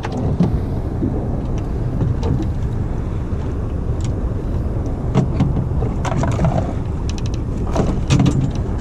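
Boat motor running steadily with a low rumble, with scattered clicks and knocks.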